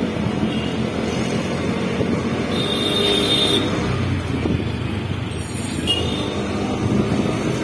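Road and traffic noise heard from a moving vehicle: a steady low rumble of engine and tyres, with a brief high-pitched tone about three seconds in and a shorter one near six seconds.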